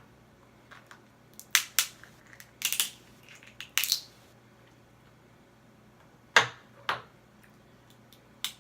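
Crab leg shells being cracked and broken open: a series of short, sharp cracks with pauses between. The loudest come about a second and a half in and again just past six seconds.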